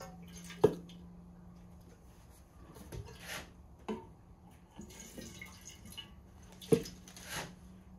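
Handling sounds of golf club regripping work: two sharp knocks, a few lighter clicks, and two short hissing swishes.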